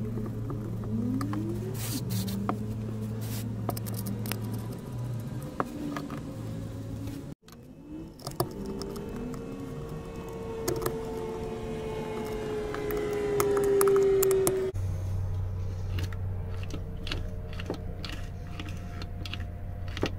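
Light metallic clicks and rattles from a small engine's recoil starter pulley and pawl plate being handled and seated in its pressed-steel housing, over a steady low hum. In the middle a drawn-out tone slowly grows louder, then cuts off abruptly.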